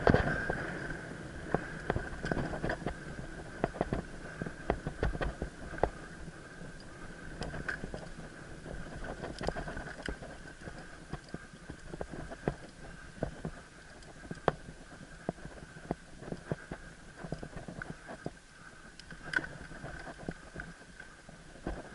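Mountain bike ridden fast along a dirt forest trail: a steady rumble of tyres on the ground with frequent sharp clicks and rattles as the bike hits bumps and roots, louder in the first few seconds. A faint steady high tone sits underneath.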